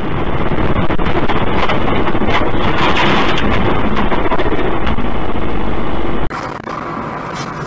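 Loud wind and road rumble picked up by a low-quality dashcam microphone in a moving vehicle's cab, with scattered knocks and rattles. About six seconds in it cuts off abruptly, giving way to quieter traffic noise.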